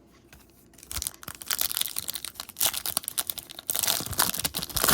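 A foil trading-card pack wrapper being torn open and crinkled by hand, a dense run of crackling that starts about a second in.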